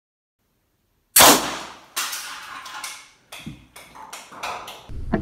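Home-made PVC compressed air cannon with a sprinkler-valve release firing at 90 PSI: one sharp, very loud bang about a second in that rings away briefly. A second bang follows about a second later, then a run of lighter knocks and clatters.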